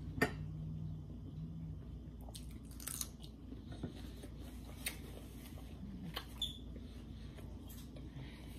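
Close-up eating sounds: chewing, with scattered clicks and taps as hands pick at a whole rotisserie chicken on a plate. A sharp click about a quarter second in is the loudest, and a low hum fades out within the first two seconds.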